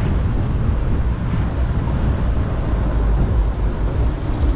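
Steady low rumble of wind buffeting an action camera's microphone, with road noise, while riding an electric scooter.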